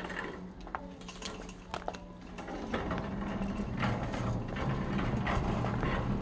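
Wire shopping cart being pushed across a hard store floor, its wheels and basket rattling. Scattered clicks at first, then a dense rattle sets in about two and a half seconds in and grows louder.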